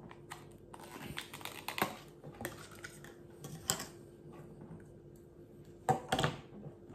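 Hands handling a clear plastic spool of monofilament fishing line: scattered light clicks and rustles as line is pulled off the spool, the loudest about six seconds in, over a faint steady hum.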